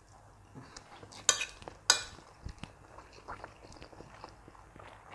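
Cutlery clinking against a plate, with two sharp clinks about a second and a half in, followed by soft scattered clicks and the sounds of eating.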